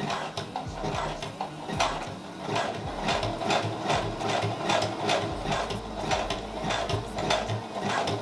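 Sewing machine stitching steadily through doubled hair wefts, with a short sharp punch about twice a second as the needle pierces the weft, over the motor's hum.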